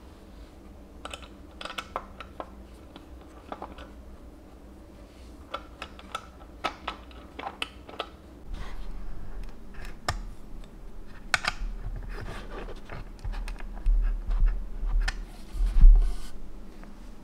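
Hands fitting and tightening small metal bolts into a wooden coffee-table frame: light, scattered clicks and scrapes of hardware on wood. Near the end come a few dull thumps as the wooden frame is handled.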